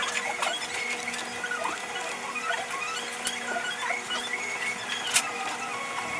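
Working sounds played back at five times speed: many short, high squeaks that glide up and down, with scattered sharp clicks, over a steady hum.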